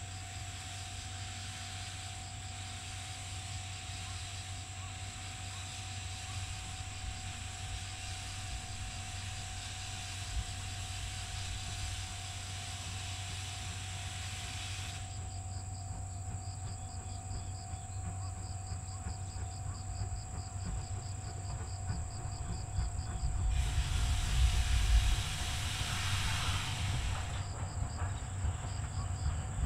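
C58-class steam locomotive blowing steam from its open cylinder drain cocks, a steady hiss over a low rumble; the hiss stops about halfway. Near the end a louder rush of steam comes for a few seconds as the locomotive starts to move.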